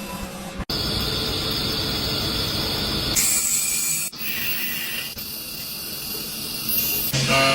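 CNC lathe machining noise: a steady hiss that changes abruptly several times.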